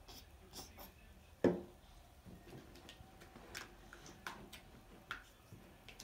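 Silicone spatula stirring glue and paint in a glass bowl: irregular light clicks and scrapes of the spatula against the glass, with one louder knock about a second and a half in.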